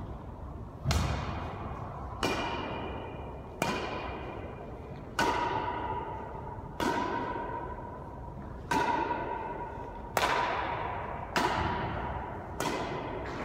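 A badminton rally: rackets striking a shuttlecock about nine times, roughly one hit every second and a half. Each sharp hit rings briefly and echoes off the hard walls of the enclosed court.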